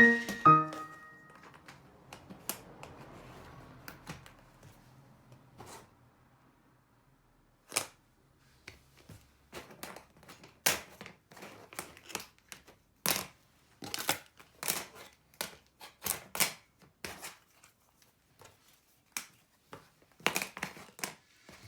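Irregular sharp plastic clicks and clacks of Plarail toy track pieces being handled and fitted together, with a tail of music dying away in the first second.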